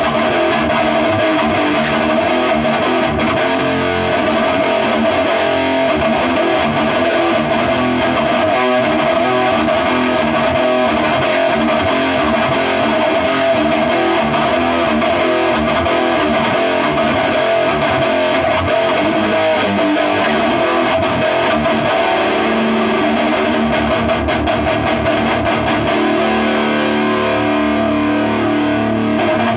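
Electric guitar played continuously through a Crate Blue Voodoo amp and cabinet loaded with two Eminence 12-inch speakers, the sound of the new speakers being tried out.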